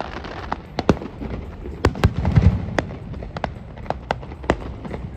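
Fireworks going off: an irregular run of sharp bangs and crackles, loudest about two seconds in.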